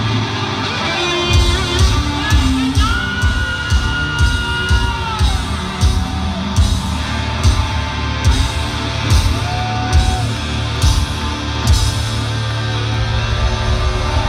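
Live hard-rock band playing loud through a big concert PA, heard from within the crowd: heavy drum hits land about twice a second and stop about twelve seconds in. A long high held note rings over them a few seconds in and bends down at its end.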